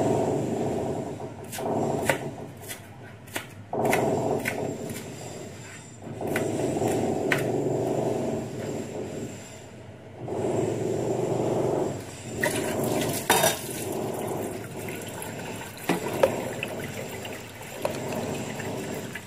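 Kitchen knife chopping onion on a plastic cutting board: a quick run of taps a couple of seconds in, then single knocks later. Under it, a rushing noise comes and goes in stretches of a few seconds.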